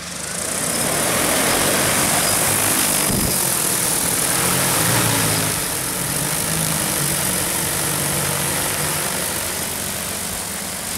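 DJI T40 agricultural spraying drone's coaxial rotors, upper and lower propeller sets, spinning up for lift-off: a loud whirring rush of propeller wash that swells over the first second or so, holds steady, then eases a little after about five seconds as the drone climbs away.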